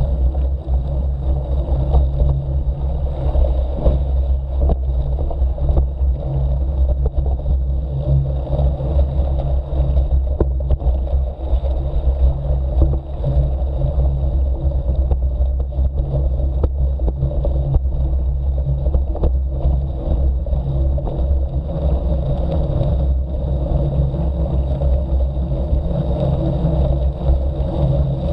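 Steady low rumble of a mountain bike's knobby tyre rolling slowly over a rough dirt road, with frequent small knocks and rattles through the bike-mounted camera.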